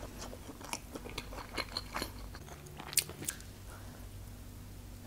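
Close-miked eating of a skewered grilled sausage: wet chewing and biting with sharp mouth clicks, the loudest about three seconds in.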